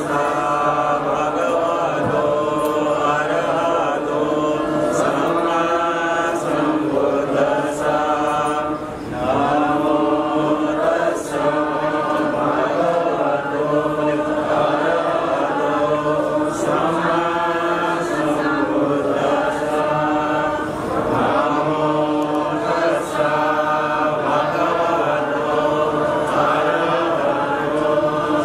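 Buddhist chanting of Pali verses: a steady, melodic recitation that runs on without a break except for a short pause for breath about nine seconds in.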